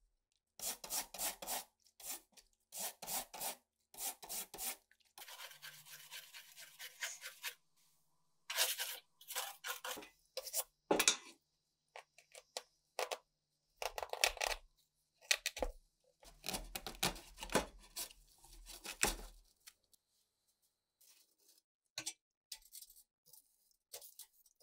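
Scrubbing and rubbing strokes on an old tape recorder's plastic casing and metal grille in soapy water, coming in scratchy bursts of about a second with short pauses between. The sounds fall quiet for a few seconds near the end.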